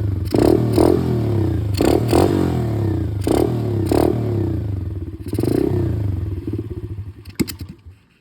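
Small dirt bike engine idling with a series of short throttle blips, then stumbling and stalling near the end. The freshly refitted carburettor is not yet tuned, and the owner suspects the choke.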